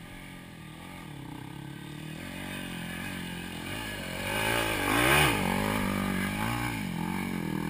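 Mini dirt bike engine revving hard as it climbs the hill, its pitch rising and falling with the throttle. It grows louder as the bike approaches, peaks about five seconds in as it passes close by, then eases slightly.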